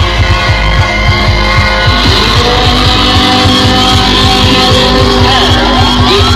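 Loud dance music blasting from truck-mounted DJ sound systems: fast, heavy bass beats under held synth notes, with gliding tones coming in near the end.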